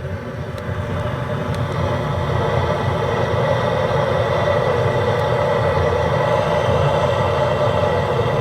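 A burner flame burning with a steady rushing noise, building over the first couple of seconds and then holding, as it heats the stove's flue to start the draught.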